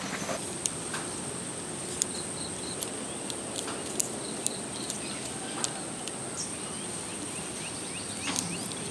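Insects making a steady high-pitched drone, with a few sharp clicks scattered through it.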